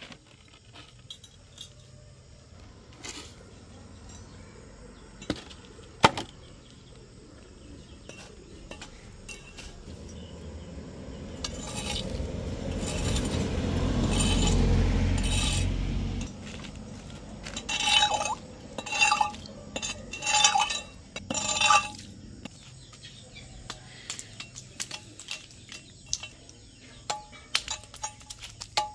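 Steel crowbar scraping and clinking against a concrete curb edge while prying at a wooden form board. Scattered light clicks come first, then a long scrape near the middle, then a run of sharp metallic clinks.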